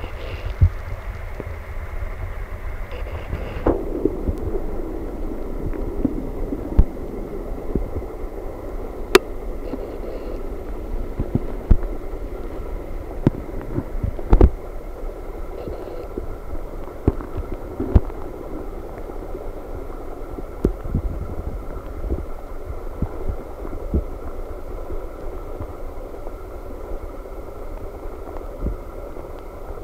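Steady low rumble with irregular dull knocks, one every second or two, as the camera is handled in water in a plastic fish tub. A higher hiss drops away about four seconds in.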